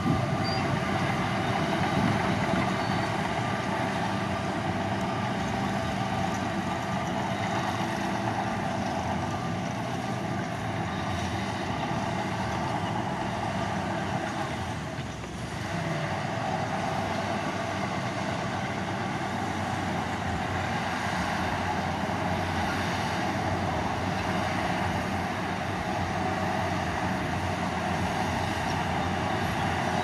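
Heavy construction machinery's diesel engine running steadily under load, easing off briefly about halfway through and then picking up again.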